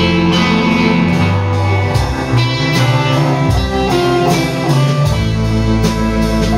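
Live folk-rock band playing: acoustic and electric guitars, bass, keyboard and drums, with a harmonica played from a neck holder, recorded on a phone in the room.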